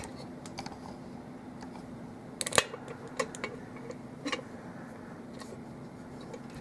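Light clicks and taps of a padlock and lock-picking tools being handled as picking begins, with a sharper cluster of clicks about two and a half seconds in, over a faint steady hum.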